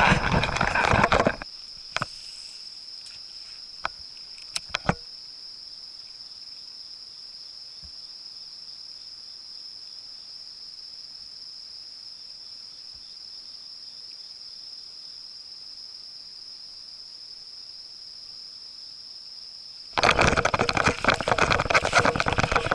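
Steady, high-pitched drone of insects, with a few sharp clicks in the first five seconds. A loud, rough noise opens the stretch and returns about 20 seconds in.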